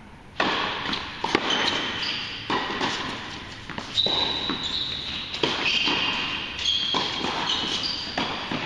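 Tennis rally in an echoing indoor hall: sharp pops of rackets striking the ball and ball bounces on the hard court, a dozen or so impacts, starting about half a second in, mixed with short high squeaks of sneakers on the court.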